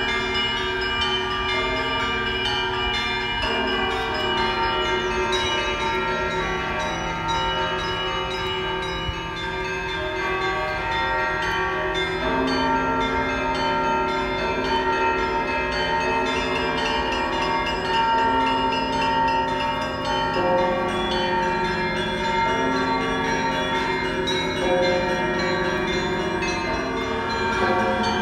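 Church bells of St. Michael's Golden-Domed Cathedral ringing a continuous peal, many bells of different pitches overlapping. A deeper bell comes in about twelve seconds in and again around twenty seconds.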